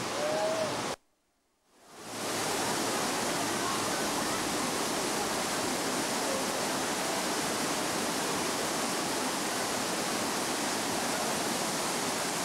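Steady rush of water pouring over river cascades and a waterfall. The sound cuts out briefly about a second in, then fades back in and holds steady.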